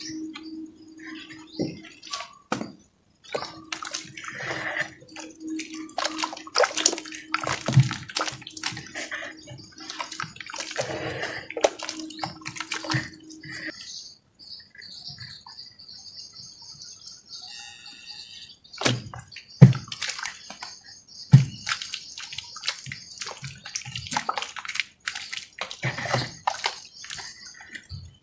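Hands squishing and sloshing in watery red-dirt mud, pressing dome-shaped lumps of dirt down into the slurry: irregular wet squelches and splats, with a few heavier plops in the second half. A low steady hum runs under the first half and stops about halfway.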